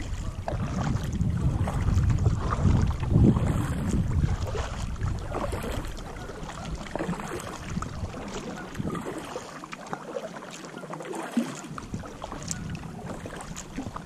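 Paddling a kayak on flooded creek water: the paddle dips and splashes irregularly, under wind rumbling on the microphone that eases off for a moment near the end.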